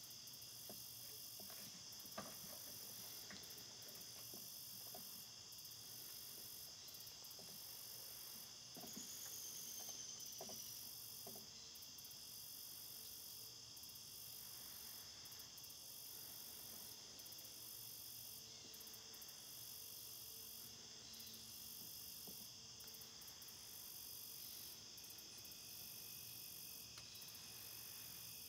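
Faint steady chorus of crickets and other insects: a constant high trilling with a pulsing layer above it. A few soft knocks come in the first dozen seconds.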